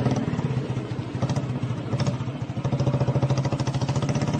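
Motorcycle engine running with an even, regular beat that quickens toward the end as it revs up.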